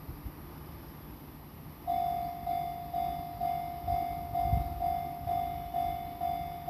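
Japanese railway level-crossing electronic warning bell starting up about two seconds in and ringing its repeated 'kan-kan' tone about twice a second, the signal that a train is approaching and the crossing is closing.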